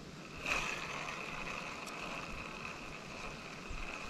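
Steady rush of river water flowing around a wading angler, with one brief louder burst of noise about half a second in.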